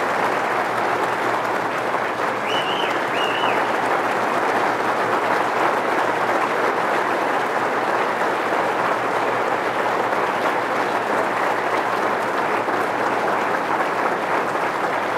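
A large crowd applauding steadily, with two short whistles about two and a half seconds in.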